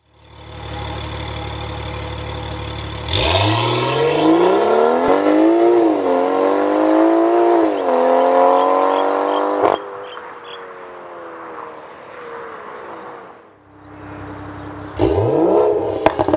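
BMW X4 M40i's B58 3.0-litre turbocharged straight-six running through a catted downpipe and a valved cat-back exhaust with the valves open. It idles steadily, then pulls hard with the revs climbing and dropping at a couple of upshifts, settles to a quieter steady run, and near the end revs sharply again with short crackles.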